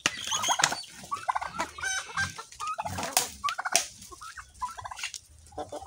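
A flock of Rhode Island Red chickens clucking, many short calls overlapping at irregular intervals.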